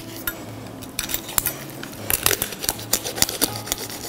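A sharp chef's knife cutting along the rib bones and cartilage of a raw, spatchcocked turkey, making a string of irregular crisp snaps and clicks as the bones crack.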